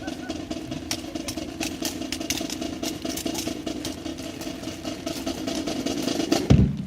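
Marching band percussion: a sustained snare drum roll with sharp stick accents, ending on one loud bass drum hit near the end.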